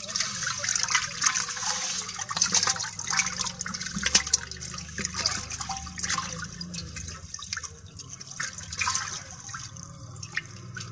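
Water splashing and sloshing in a shallow metal basin as hands grab among live climbing perch and the fish thrash. A rapid, irregular patter of small splashes, busiest in the first few seconds and thinning out towards the end.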